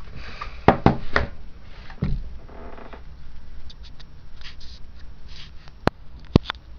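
A small camera being handled and turned over in the hands: soft rustling with scattered clicks and knocks, and two sharp clicks near the end.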